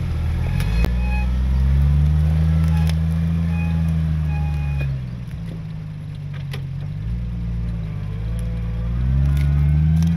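A motor vehicle's engine revving up and holding, easing back about halfway through, then revving up again near the end.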